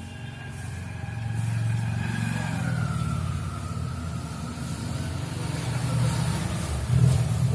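Low rumble of a running motor engine, swelling louder about a second in and again near the end, with a faint tone sliding down in pitch.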